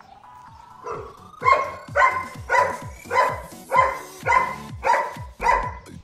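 Background music with a steady beat, with a dog's bark repeating in even time about twice a second from about a second and a half in.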